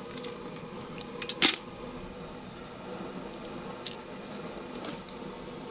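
Live blue crabs dropped into a perforated aluminium fryer basket: a few short clacks as they land, the loudest about a second and a half in, over a steady hiss.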